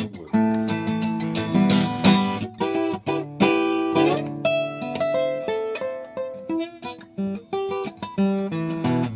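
Acoustic guitar played solo: strummed chords with sharp strokes, and a few held single notes a little past the middle.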